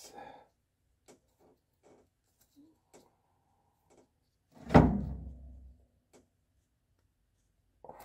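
Faint clicks and taps of hands handling the broken motor coupler pieces under a washing machine, with one loud thump about halfway through that rings on briefly.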